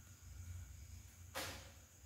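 A single brief rustle of a plastic bag as kittens move about on it, about one and a half seconds in, over a faint low steady hum.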